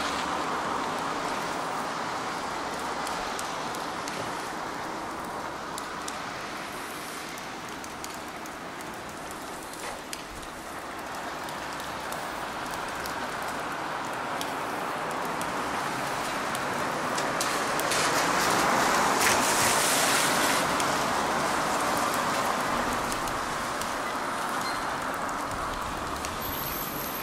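Street traffic on wet asphalt: a steady hiss of tyres on the wet road, swelling as a car passes close by about two-thirds of the way through, then fading.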